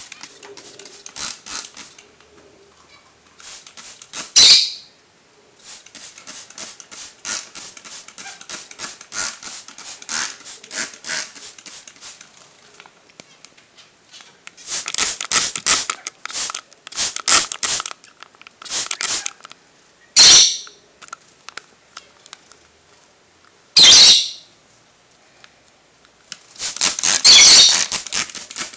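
Water being sprayed onto a bathing pigeon on a tile floor: several short, loud hissing bursts of spray, the longest near the end, with light pattering and clicking in between.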